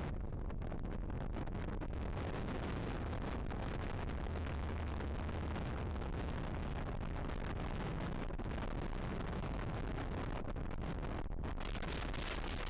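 Strong wind buffeting the microphone aboard a sailing yacht, a steady low rumble with a hiss of wind and water over it.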